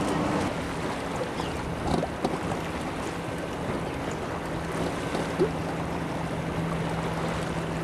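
Wind buffeting the microphone and lake water slapping against a bass boat's hull, over a steady low motor hum that grows stronger about halfway through.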